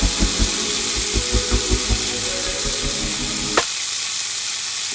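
Chicken gizzards sizzling as they fry in a pan, a steady hiss. Background music with a steady beat plays under it and cuts off about three and a half seconds in.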